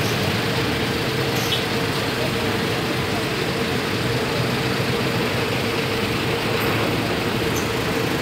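Steady road-traffic noise: a constant wash of running and idling vehicles, with a low hum and one steady held tone underneath.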